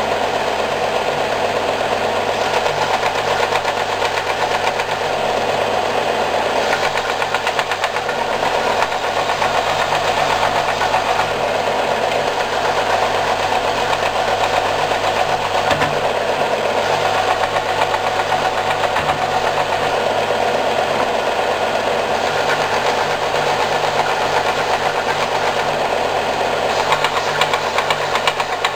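Bench-top combination belt and disc sander running steadily, with small pine pieces pressed onto the moving sanding belt.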